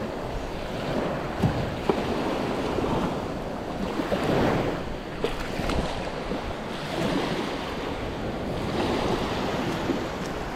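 Surf breaking and washing up the beach, rising and falling, with wind on the microphone. A few sharp clicks stand out about one and a half to two seconds in and again a little past five seconds.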